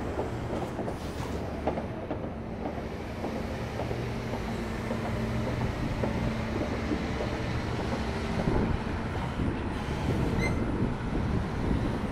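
Heavy diesel engine of a large crawler excavator idling with a steady low hum, with scattered light clicks and knocks.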